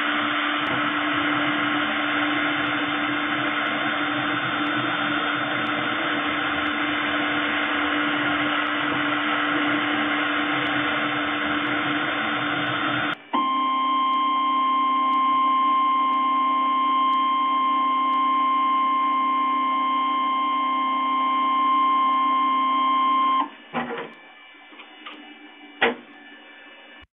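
CNC milling machine spindle with a 1 mm ball-nose cutter machining a PVC pipe held on a rotary axis: a steady, noisy cutting sound over a low hum. About halfway through it changes abruptly to a steadier whine with one clear high tone, with the cutter lifted clear of the pipe. A couple of seconds before the end it stops, leaving a few faint clicks.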